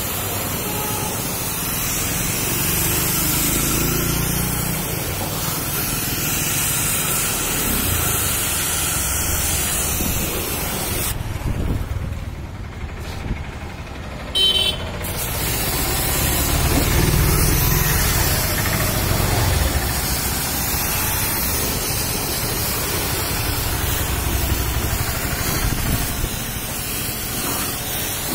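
A pressure washer's high-pressure water jet spraying a car's muddy bodywork and wheel arch: a steady spray over a low rumble. The spray cuts out for about four seconds near the middle, then starts again.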